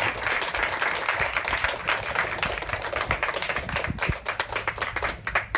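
Small audience applauding, many hands clapping together; the clapping thins out near the end.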